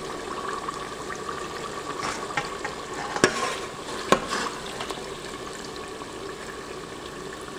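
Hot oil sizzling steadily around french fries as they are scooped out of the pot with a metal slotted spoon. Two sharp clinks of the spoon on metal stand out, one about three seconds in and another about a second later.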